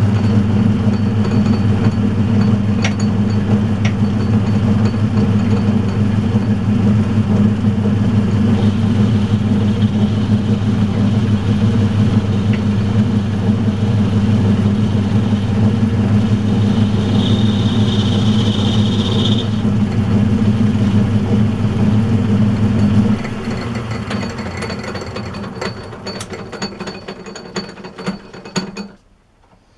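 Metal-turning lathe running steadily with a deep motor hum, while a stepped sleeve is turned. A higher whine joins through the middle as the tool cuts. The lathe is switched off about 23 seconds in and spins down, falling silent near the end.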